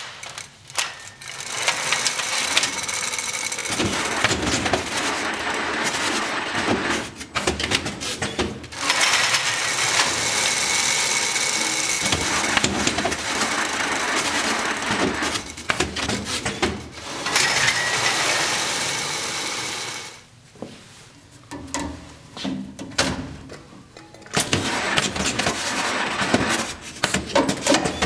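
Orbital tape and stretch-film banding machine running in several cycles a few seconds long, a mechanical whirr with a steady whine. Between cycles come short pauses with clicks and knocks.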